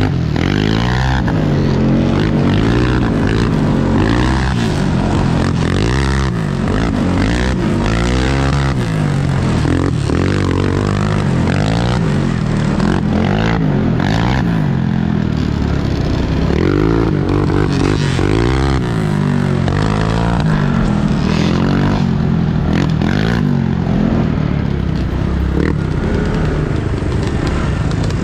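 Off-road vehicle engine riding a dirt trail, its pitch rising and falling again and again as the throttle opens and closes, with frequent knocks and rattles over rough ground.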